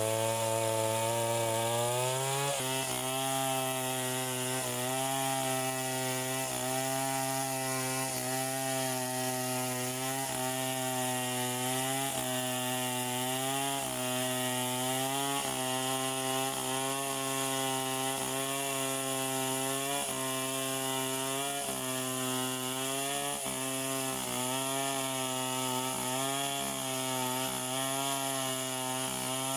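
Chainsaw engine running at high revs while cutting wood. It starts suddenly, climbs in pitch over the first two seconds, then dips briefly and recovers about every second and a half as the chain bites into the wood.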